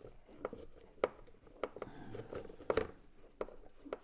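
Screwdriver working a screw in the plastic headlamp housing, with about six sharp clicks spaced roughly half a second apart.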